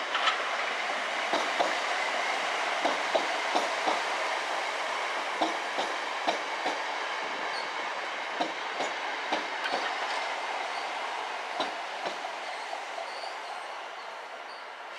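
Class 66 diesel freight locomotive hauling a rake of empty stone wagons past at low speed, with a steady rolling rumble and repeated sharp wheel clicks, often in pairs, as the wheels cross the rail joints and points. The sound eases slightly toward the end.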